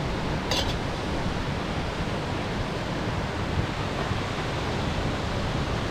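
Steady rushing noise of a waterfall, with a short high hiss about half a second in.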